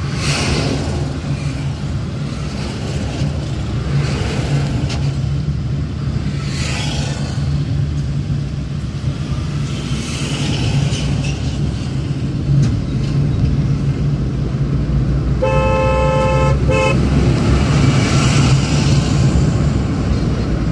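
Steady engine and road drone heard from inside a moving car at highway speed, with several swells of wind and tyre noise. A vehicle horn sounds once, for about a second and a half, roughly fifteen seconds in.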